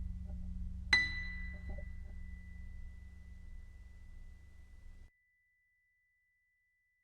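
A high chime struck once about a second in, ringing on as one steady high tone that slowly fades, over a low hum that dies away and cuts off abruptly about five seconds in.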